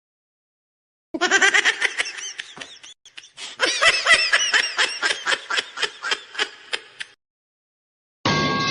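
High-pitched laughter in rapid pulses, in two bouts lasting about six seconds, the second bout fading out.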